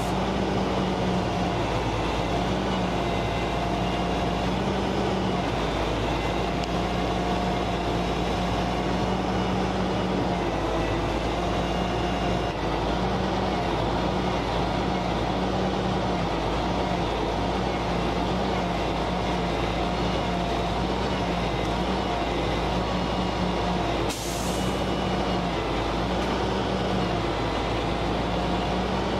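Heavy tow truck's diesel engine running steadily, with a short hiss near the end.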